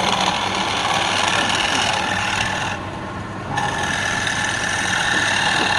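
Wood lathe running with a turning tool cutting the spinning wood: a steady scraping hiss over the motor's hum. About three seconds in, the cutting noise briefly drops away, then resumes.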